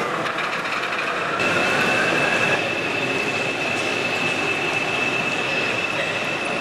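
Model goods train of loaded coal wagons running along the layout track, with a steady rolling noise. A whine rises in pitch over the first two seconds or so, and a high steady whine sets in about a second and a half in and holds.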